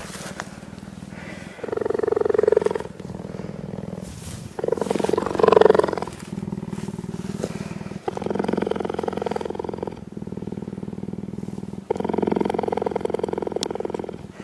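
Cheetah purring while its head is stroked: a continuous purr that swells louder about every three to four seconds with its breathing.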